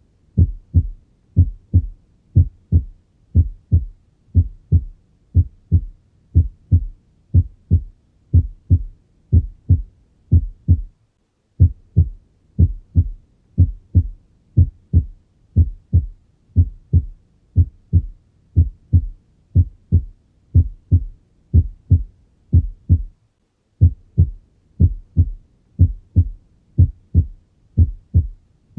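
Normal heart sounds heard on auscultation: a steady lub-dub of paired low thuds, about one pair a second, with a normal first heart sound. Twice the beat stops for a moment and then resumes.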